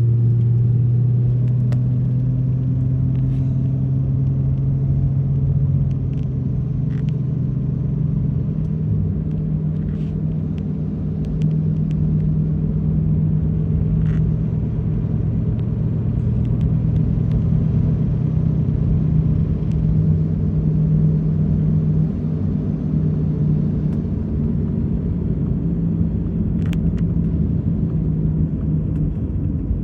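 Car driving: steady engine drone and road rumble, the engine's pitch easing down over the first few seconds and then shifting slowly with speed, with a few faint scattered clicks.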